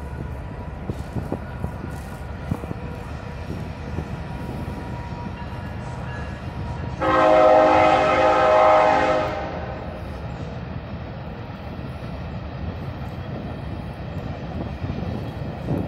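Locomotive air horn sounding one long blast of about two and a half seconds, several tones together, coming in sharply partway through over a steady low rumble.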